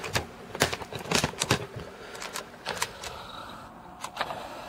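Handling noise: a run of irregular sharp clicks and taps, most of them in the first three seconds and a couple more near the end.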